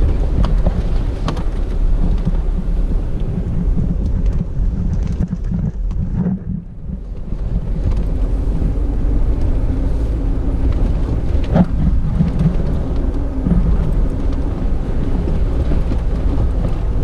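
Vehicle driving over a rough gravel track: a loud, steady low rumble of engine, tyres and wind on the microphone, with occasional knocks and rattles from the rough surface. The rumble eases briefly about six seconds in.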